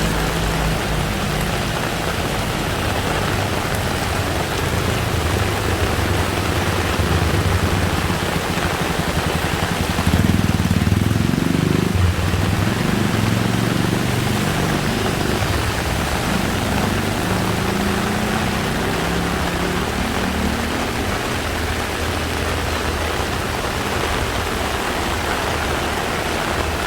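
Heavy rain pouring down steadily, with motor vehicle engines running in the traffic on a flooded street; one grows louder as it passes close about ten seconds in.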